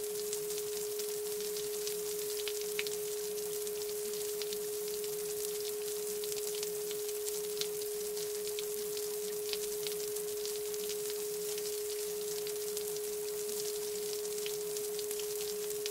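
A single steady pure tone a little below 500 Hz, held unchanged, over a faint high hiss with scattered soft ticks.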